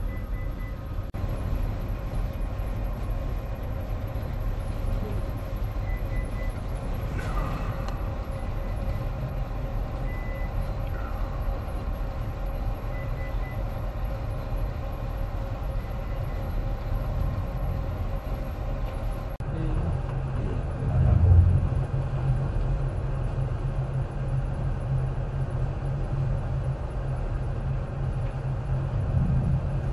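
Steady low mechanical rumble of a bulk carrier's machinery, heard from the open deck while the ship is underway. About two-thirds of the way through comes a brief, louder low swell.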